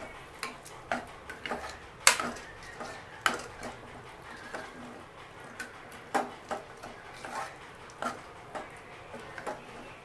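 Steel spoon stirring thick mutton curry in an aluminium pressure cooker, scraping and knocking against the pot's sides in irregular strokes, with a sharper clank about two seconds in.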